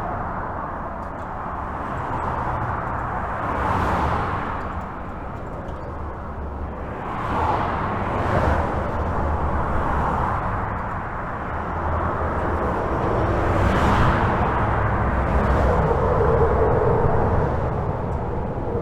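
Continuous highway traffic heard from under a bridge: a steady hum of tyres and engines with the sound swelling every second or few as individual vehicles pass.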